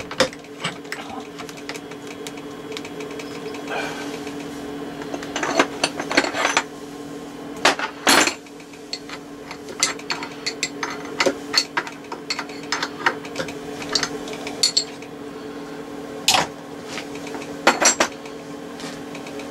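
Metal tools being handled, with irregular sharp clinks and knocks, the loudest near the middle and twice near the end, over a steady hum.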